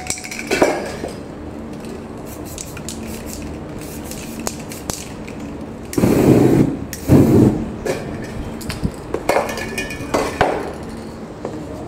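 Aerosol spray paint cans handled and sprayed during stencil painting: small clicks and knocks from the cans, two loud bursts about six and seven seconds in, and a paper stencil rustling as it is lifted near the end.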